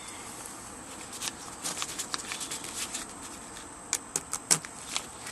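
Old vinyl covering being peeled off a wooden speaker cabinet: irregular crackling and tearing for a couple of seconds from about a second in, then a few sharp clicks near the end.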